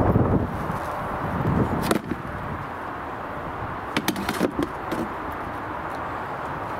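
Spade working garden soil, with boots treading it around a newly planted rhubarb crown: a few dull thuds and scrapes in the first two seconds, then a quick cluster of sharp knocks about four seconds in.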